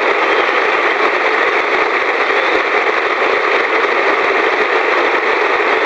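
Steady, loud static hiss with no music or voice to be heard.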